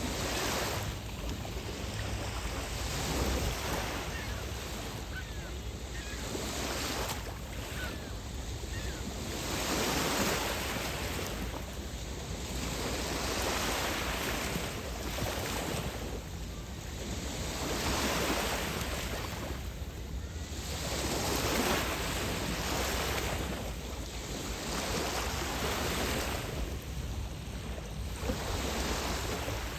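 Waves washing onto a beach, each wash swelling and easing every two to three seconds, over a steady low rumble of wind on the microphone.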